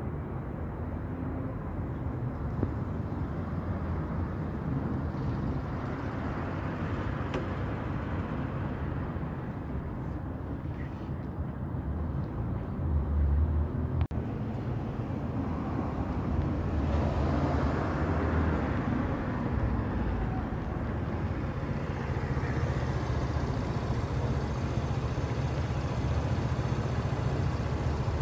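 Steady rumble of street traffic, swelling as vehicles pass a couple of times.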